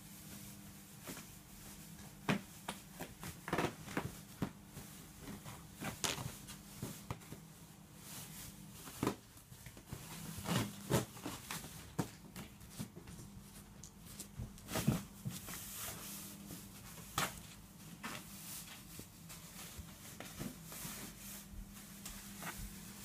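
Handling noise: scattered light clicks and short rustles as a finger brushes the fabric of a mattress edge close to the microphone, over a low steady hum.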